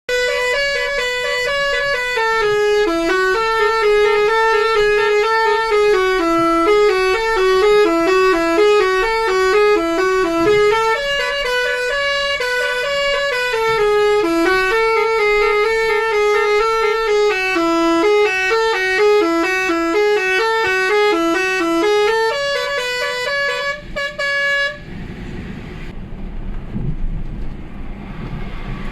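Basuri multi-tone 'telolet' bus horn playing a long melody of stepped notes that rise and fall. It cuts off suddenly about 25 seconds in, leaving the rumble of the bus and road.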